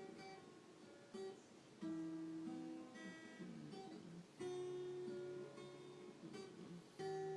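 Acoustic guitar being played. A chord is strummed about every two and a half seconds and left ringing, with single picked notes in between.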